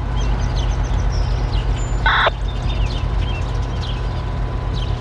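Low steady rumble of an EMD GP38-2 diesel locomotive's engine running as it approaches slowly, with birds chirping over it and one louder short bird call about two seconds in.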